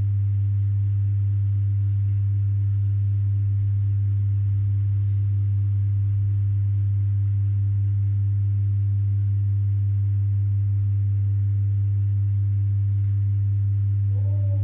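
A loud, steady low hum that does not change at all.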